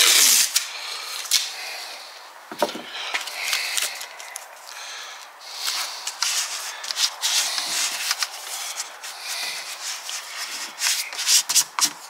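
Masking tape pulled off the roll with a loud tearing hiss at the start, then fingers rubbing and pressing the tape down onto a door frame in scratchy bursts.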